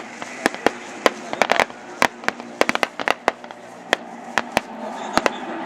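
Blank gunfire from a reenacted battle: sharp, irregular shots, sometimes single and sometimes several in quick succession, heard from a distance.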